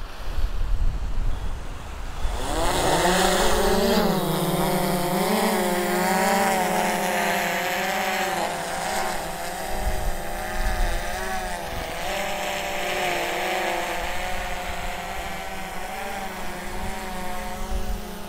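A multirotor fishing drone's propellers spin up on automatic take-off about two and a half seconds in, rising in pitch. It then settles into a steady buzzing whine whose pitch wavers slightly as the drone climbs and holds position.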